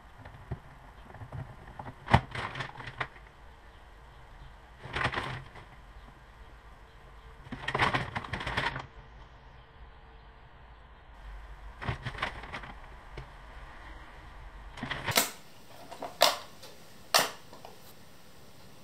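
Hands handling and rubbing a stiff leather sheath, giving several separate bursts of rustling and scraping. About fifteen seconds in, three short sharp sounds about a second apart as the leather is hand-stitched with needle and thread in a stitching clamp.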